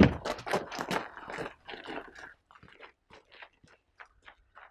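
Footsteps of two people crunching on gravel, loud at first and growing fainter and sparser as they walk away.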